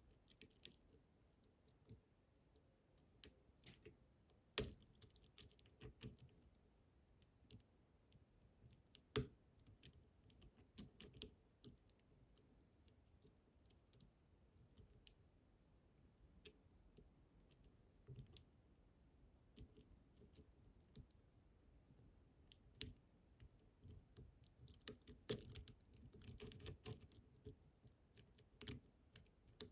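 Faint, scattered small clicks and taps of a lock pick working the tumblers inside a Fichet F3D high-security cylinder, with sharper clicks about four and a half and nine seconds in and a busier run of clicks near the end.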